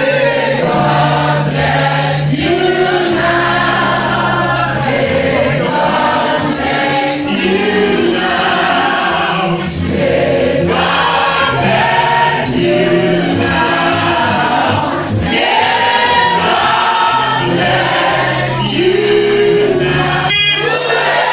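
Church choir singing a gospel song, many voices together over steady low held bass notes.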